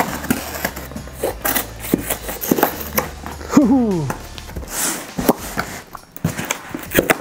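Packing tape on a cardboard box being slit with a folding knife and torn off: a run of sharp scratches, rips and clicks, with one short falling squeal about three and a half seconds in as the tape is peeled away.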